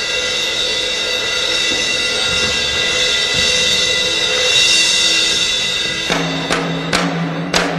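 Background music: sustained chords, then about six seconds in, sharp drum hits come in over a steady low note.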